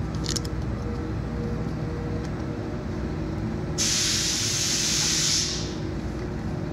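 A sudden burst of loud hissing, like air being released, starts abruptly about four seconds in and trails off under two seconds later. A steady low hum runs underneath, and a few light clicks come just after the start.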